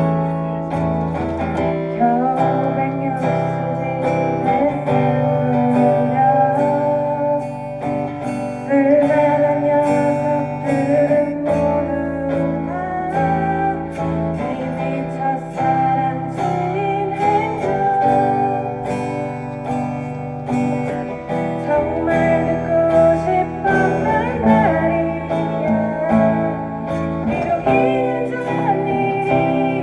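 A live band playing a song: guitars over a steady bass line, with a melody moving on top.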